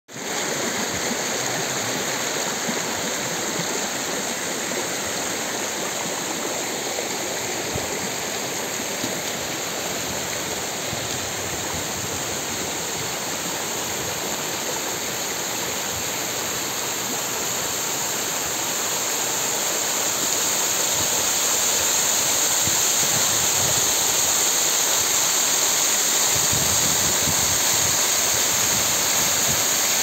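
Shallow stream rushing over rocks and gravel: a steady splashing hiss of running water that grows somewhat louder about two-thirds of the way in.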